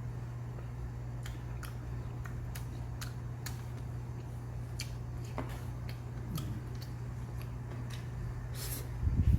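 Metal spoon and chopsticks clicking lightly against bowls and dishes during a meal, a dozen or so irregular clicks over a steady low hum. Near the end comes a louder low bump or rumble.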